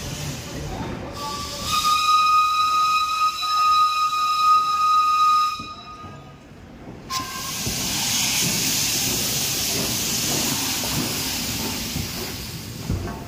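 Steam locomotive whistle: a short toot, then one steady chord of several tones held for about four seconds before it cuts off. After a brief pause, steam hisses loudly and evenly for several seconds, then dies away near the end.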